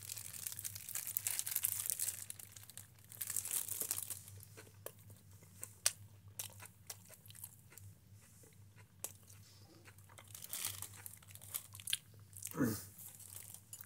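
Thin plastic food bag crinkling and rustling as it is handled, densest in the first few seconds, then quieter scattered clicks and taps.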